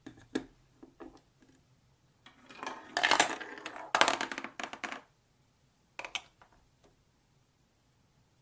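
Marbles clicking and clattering down a plastic LEGO Duplo marble run: a few separate clicks, then a dense rattling clatter for about two and a half seconds, then a couple more clicks.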